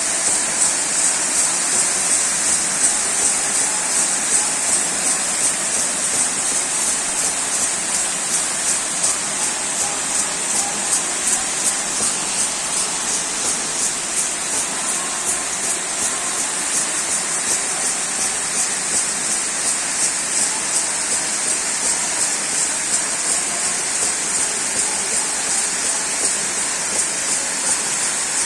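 Waterfall rushing steadily, with a regular high shaking pulse of about two beats a second over it.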